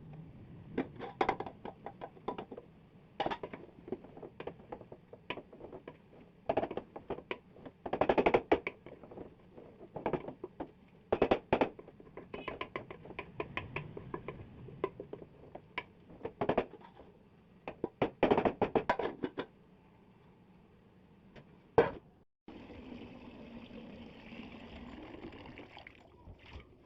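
Irregular knocks and clattering, some in quick clusters, then, after a brief cut, a steady hiss for about four seconds near the end.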